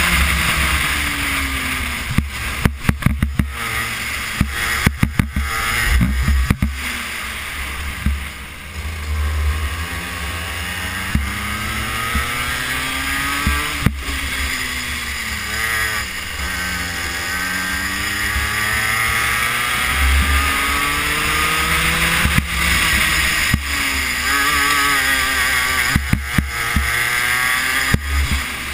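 Racing kart engine heard from on board, its revs climbing along the straights and dropping as the kart slows for corners, several times over. Wind rumbles on the microphone, and sharp knocks in the first few seconds come from the chassis jolting over bumps and kerbs.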